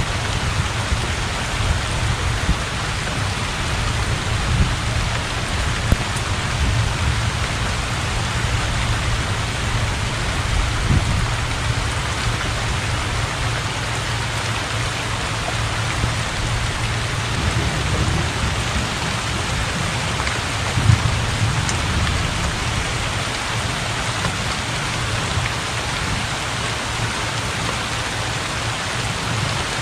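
Heavy rain falling steadily on open water and a thatched roof, with an occasional sharper drip. A low rumble runs underneath and swells a little past the middle.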